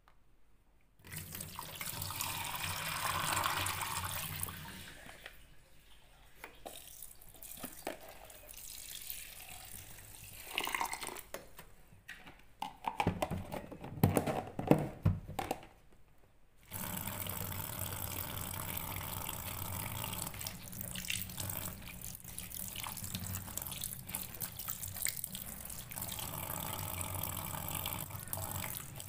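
Tap water running into a sink, broken by a spell of sharp knocks and clatter about 13 to 15 seconds in. The water stops briefly, then runs steadily again.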